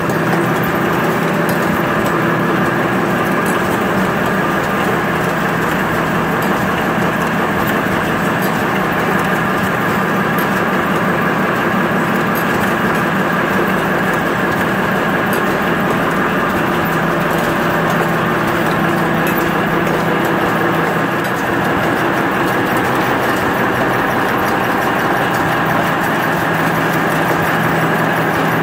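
Automatic napkin folding and packaging machine running: a steady, even mechanical hum with a few constant tones, from the conveyors and flow-wrapper working continuously.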